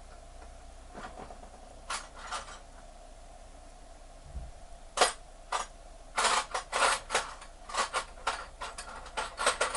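Small metal hand tools clinking against each other as they are picked through: a few light clicks at first, then a quick run of sharp clinks from about halfway in.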